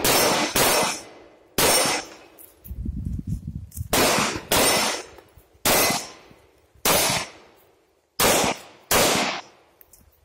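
Pistol shots, about nine, fired at an uneven pace with some in quick pairs, each with a short echoing tail.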